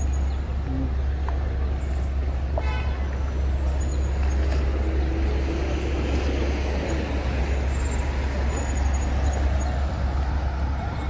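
Street traffic on the road alongside: a steady low rumble with a vehicle passing about six seconds in, and a brief high tone about two and a half seconds in.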